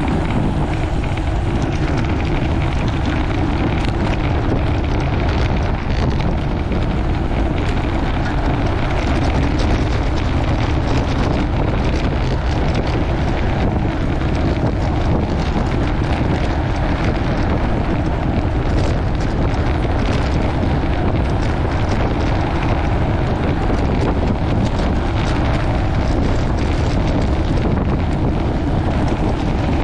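Steady rush of wind buffeting the microphone of a camera on a road bike riding at about 18 to 29 mph, with tyre noise from rough pavement mixed in.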